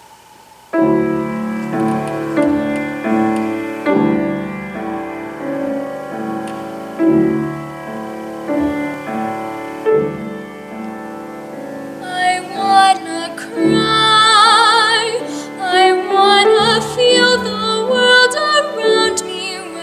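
A piano plays an introduction of sustained chords and melody. About two-thirds of the way through, a girl's solo voice comes in over it, singing with vibrato.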